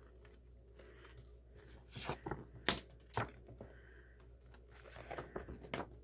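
Light rustling of paper and packaging with a few sharp clicks and taps as album inserts are handled, in two short spells with quiet between.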